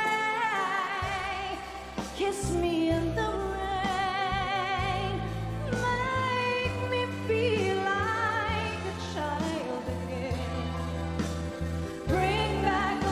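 A woman singing a slow pop ballad with wide vibrato over band accompaniment, a bass line coming in about a second in.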